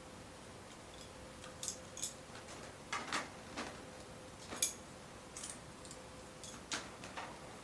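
Light, irregular clicks and taps of metal grow-shelf poles and parts being handled and fitted together, about a dozen, the sharpest just past the middle, over a faint steady hum.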